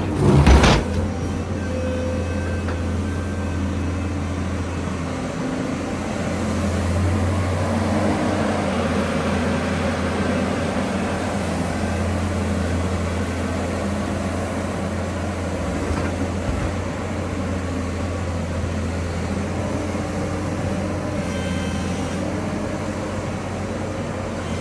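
Hydraulic excavator's diesel engine running steadily under working load, with a loud clank about half a second in.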